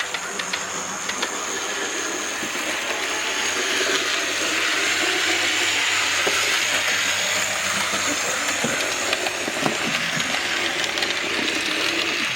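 Tri-ang Hornby Coronation Scott model locomotive running on the layout: its small electric motor whines steadily, building a little over the first few seconds, with scattered clicks of the wheels over the track, several close together about nine seconds in.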